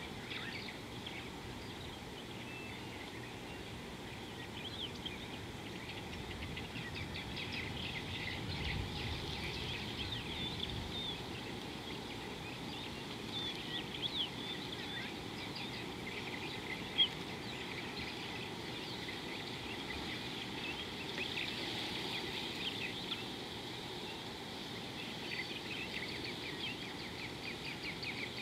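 Chorus of small birds chirping and twittering, many short high calls overlapping over a steady outdoor background hiss. A single short, sharp tick stands out just past the middle.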